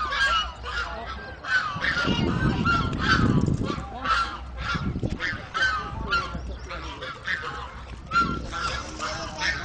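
A flock of white domestic geese honking continuously, with many overlapping calls several times a second. A burst of low rumbling noise about two seconds in lasts a couple of seconds.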